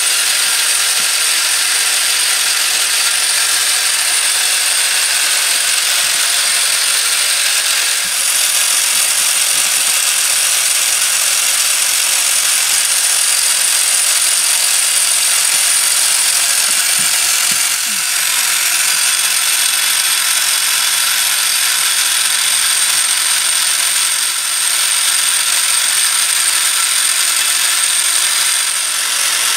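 Meccano model crane's metal gear train and crank linkages running steadily, with a continuous clattering whir of small gears and a thin steady high whine over it.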